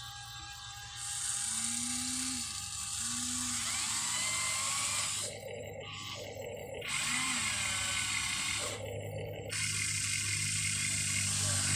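Huina 1593 RC excavator's electric motors whining as the machine is worked. The high-pitched whine stops and starts again twice, with a steady low hum underneath.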